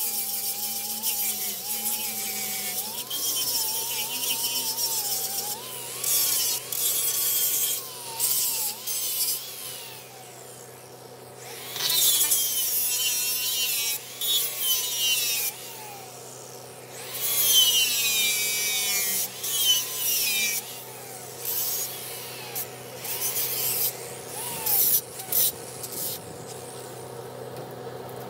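Electric angle grinder with a sanding disc grinding steel in repeated passes, its motor whine wavering in pitch as the disc is pressed on and eased off, with short pauses between passes.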